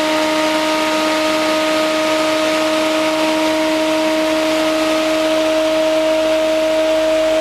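Bedini-Cole style window motor with a magnetically levitated rotor running at a steady speed: a steady whine at one pitch over an even hiss.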